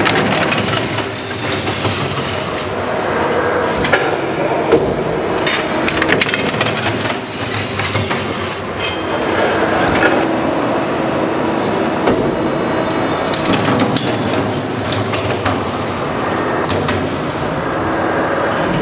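Darley VS2525 hydraulic guillotine shear at work on cathode plates: a steady hum from the hydraulics under repeated metallic clanks and clatter as the blade and plates move.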